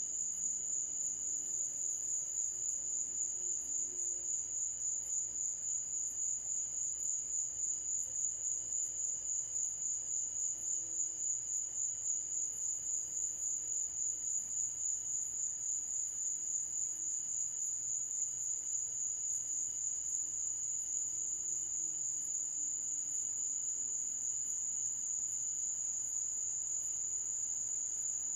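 A chorus of night insects trilling: one steady, high-pitched buzz that pulses in a quick, even rhythm.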